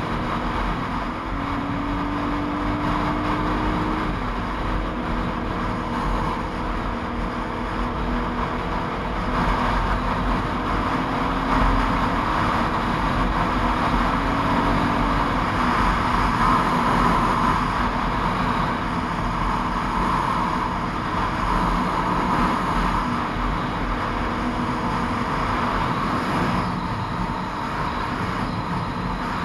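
Motorcycle running at steady cruising speed, its engine a faint drone under strong wind and road noise on the bike-mounted microphone.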